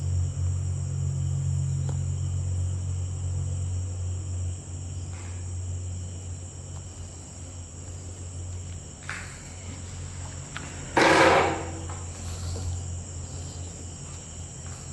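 Steady high chirring of night insects, with a low hum underneath that is stronger in the first few seconds. A short, loud burst of noise comes about eleven seconds in.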